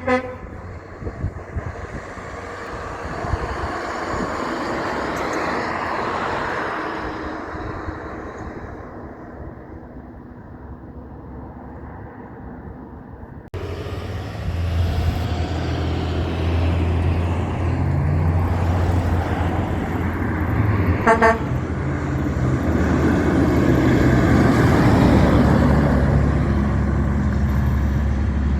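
Heavy trucks driving past, in two separate passes: a short horn toot at the start, then a loud low diesel engine drone with a brief horn blast about three-quarters of the way through, as the truck passes close.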